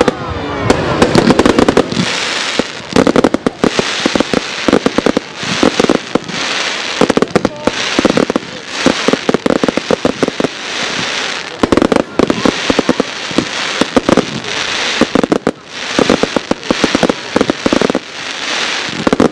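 Fireworks display: aerial shells bursting in quick succession, with dense rapid crackling pops that come in waves every second or two.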